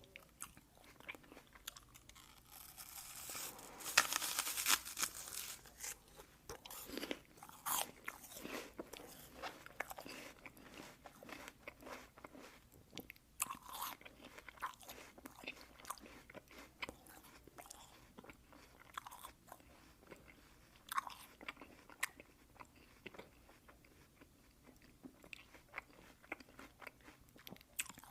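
A person biting into a crisp apple with a loud crunch about four seconds in, then chewing it, a long run of small wet crunches and clicks.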